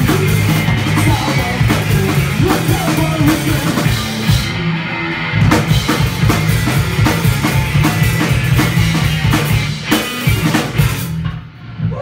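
Live punk rock band playing loud, with electric guitar, bass guitar and a drum kit and no singing. The music thins out briefly about four and a half seconds in, and the song stops near the end.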